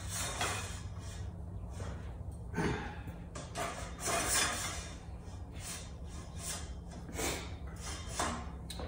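Several short rubbing and scraping strokes as the upper handles are turned and slid in the steel frame of a vertical climber, over a steady low hum.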